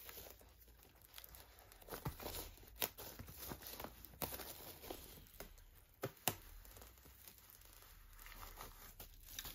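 Plastic shrink wrap crinkling and tearing as it is peeled off a vinyl LP's cardboard gatefold sleeve. There are faint crackles throughout and a few sharp snaps, the sharpest about six seconds in.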